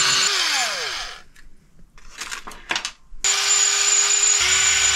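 Small cordless electric screwdriver backing out RC truck shock mounting screws. One run winds down within the first second, a few small clicks follow, then the driver spins again for about two and a half seconds, its pitch dropping slightly partway through as it takes load.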